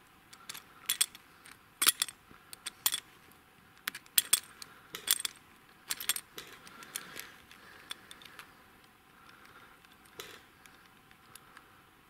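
Steel sable trap being handled, its metal parts clinking and jangling in quick clusters, thinning out in the later seconds.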